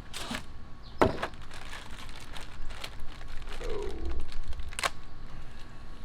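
Packaging crinkling and a few sharp knocks and clicks as the kayak cart and its parts are handled out of the box, with the loudest knocks about a second in and near the end.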